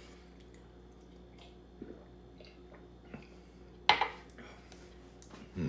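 A shot glass set down sharply on a hard surface about four seconds in, with a brief ringing tail, amid a few small clicks and a softer knock near the end.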